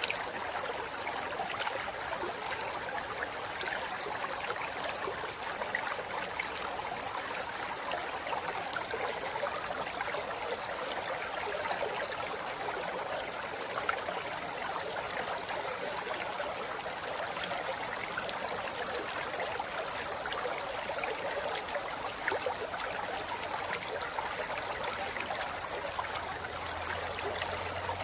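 River water flowing over rocks: a steady, even rush of water.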